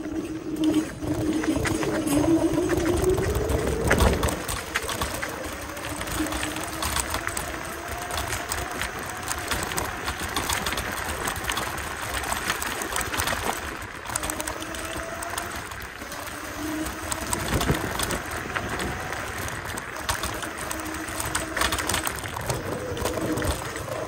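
Kaabo Mantis Pro electric scooter riding over cobblestones. The motor whine rises in pitch over the first few seconds, then holds and shifts with speed, over a steady rattling rumble from the wheels on the cobbles.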